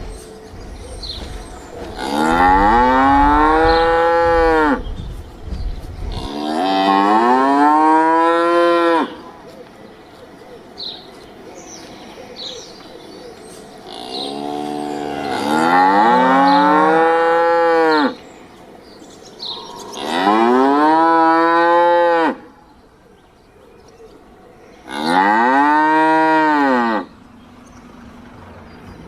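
A cow mooing again and again: about six long, loud moos, each rising and then falling in pitch, with short pauses between them.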